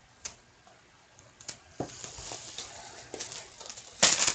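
Hands handling a hockey card box and its packs: a few light clicks and taps, then crinkling and rustling of packaging, with a louder burst of rustling near the end.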